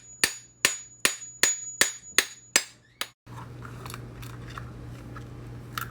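Repeated hammer blows on the truck axle of an electric skateboard hub motor, about two and a half strikes a second, knocking the bearing cover (inner hub) loose. The hammering stops about three seconds in. A faint steady hum with small ticks follows, and there is a sharper click near the end.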